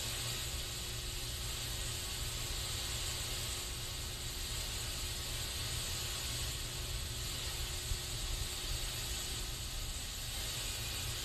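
Aerosol spray can hissing in one continuous, steady spray, with a low rumble underneath.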